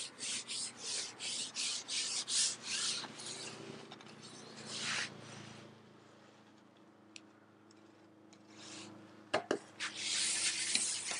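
A carbon fishing pole being pushed out, its sections sliding through the angler's hands with a rhythmic rasping swish about three times a second. The swishing dies away about four seconds in, and two sharp clicks follow a little after nine seconds.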